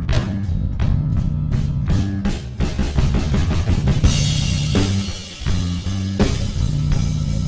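Background rock music with drum kit, bass and guitar, a cymbal crash about four seconds in.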